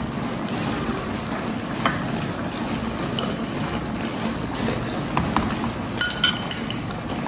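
Steady sizzling hiss of an electric hot pot of cured-pork and potato stew simmering on low heat. About six seconds in come a couple of light ringing clinks of chopsticks against a porcelain bowl.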